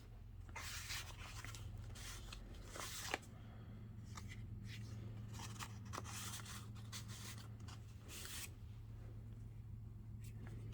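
Paper journal pages and a craft envelope rustling and crinkling as they are handled and turned, in irregular soft bursts with a sharper crinkle about three seconds in. A low steady hum runs underneath.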